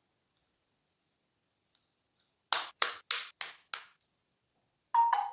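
Five sharp plastic snaps in quick succession over about a second: the back cover of a Nokia C12 budget phone being clipped into place over the battery. Just before the end, a short electronic chime begins.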